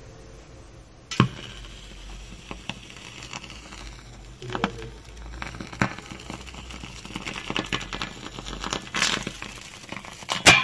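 A lump of potassium metal reacting with water, sizzling and spluttering with scattered sharp crackling pops. There is a sharp pop about a second in, and the loudest pop comes near the end.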